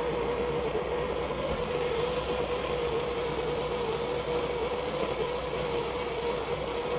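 Gas blowtorch flame burning steadily, with a steady hiss and a constant hum, as it heats a fluxed copper pipe fitting for soldering.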